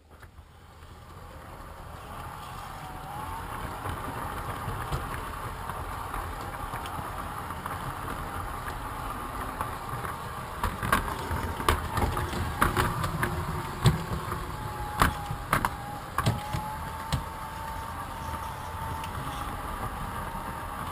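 Large-scale model train running on a shelf-mounted track, heard from on board: a steady electric-motor hum and wheel rumble on the rails that grows louder over the first few seconds. A run of sharp clicks and knocks from the wheels on the track comes in the middle.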